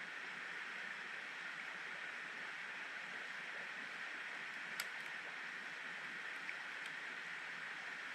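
Steady rushing of a river stream, with one small click about five seconds in.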